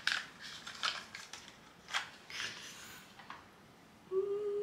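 Soft clicks and light rustling as a lipstick case is handled and opened, followed by a short steady held tone a little before the end.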